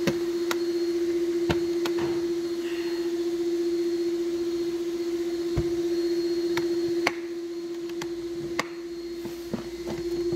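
Steady machine hum at one constant pitch that eases slightly about seven seconds in. Over it come a series of sharp plastic clicks and knocks as the latches and handles of Milwaukee Packout tool cases are handled.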